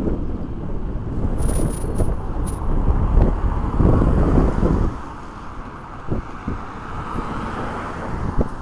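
Wind buffeting the microphone with a heavy low rumble that eases off about five seconds in, followed by a car driving past close by with tyre noise on the road.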